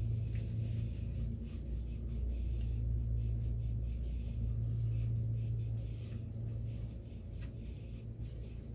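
A steady low hum, with faint rustling and light ticks of a paper towel wiping a pistol barrel.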